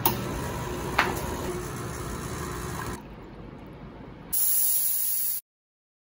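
Espresso machine pump running steadily as a double shot pours into two shot glasses, with one sharp click about a second in. After a quieter stretch, the steam wand hisses loudly for about a second and cuts off abruptly.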